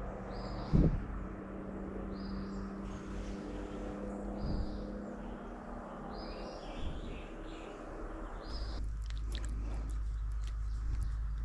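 A bird repeating a short, high call about once a second, over a steady low hum. A thump comes about a second in. Near the end the background changes and a few sharp clicks follow.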